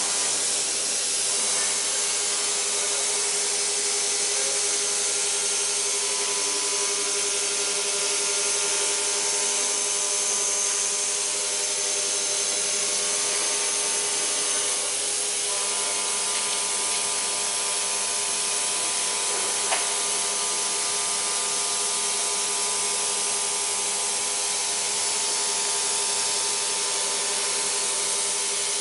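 CNC vertical machining center milling a metal block with a small end mill: a steady cutting hiss over a steady spindle whine. A single sharp click sounds about two-thirds of the way through.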